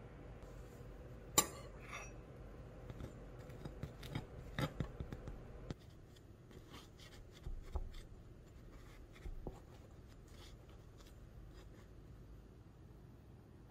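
A metal spoon clicking and scraping lightly against a baking pan and the crust of baked pull-apart bread rolls as butter is spread over them. A sharp click about a second and a half in is the loudest, followed by scattered soft taps.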